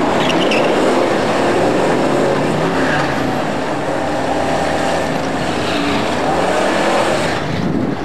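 A pair of drag-racing cars at full throttle, launching off the line and pulling away down the strip. The engine note climbs more than once.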